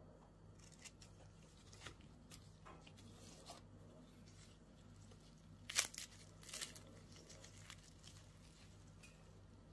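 Crisp fried samosa pastry cracking and tearing as it is pulled apart by hand: a scatter of faint crunches, loudest in a short cluster a little past halfway, over a steady low hum.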